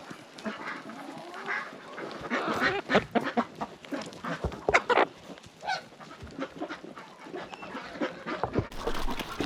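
A flock of domestic geese and ducks calling, with honks and quacks, mixed with scattered short clicks and knocks.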